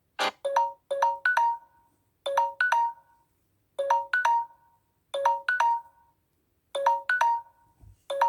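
Samsung Galaxy J7 2017 ringtone playing: a quick figure of about four short chime notes, repeated about every one and a half seconds.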